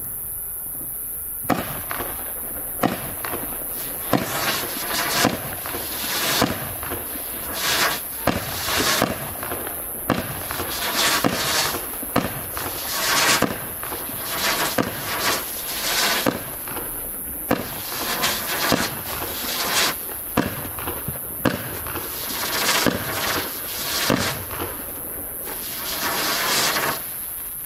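Vulcan Pyrotechnics 30 mm quiet firework cake firing. Shots start about a second and a half in and follow roughly one a second until near the end. Each shot is a short sharp pop followed by a brief hiss as the green-tailed, gold-glitter effects go up.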